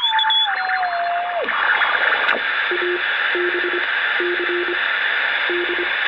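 CB radio transceiver receiving on AM with steady static hiss. A whistling tone steps down in pitch and stops about a second and a half in, while the knobs are being turned. Later come four short groups of low beeps.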